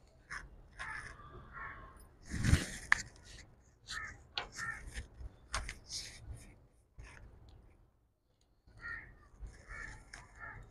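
Short, harsh bird calls repeating in clusters. A single loud knock comes about two and a half seconds in, with a few sharp clicks of cookware around the wood-fired stove.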